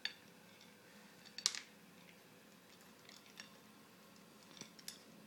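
Persian cat crunching dry kibble: a few short, crisp crunches at irregular intervals, the loudest about a second and a half in.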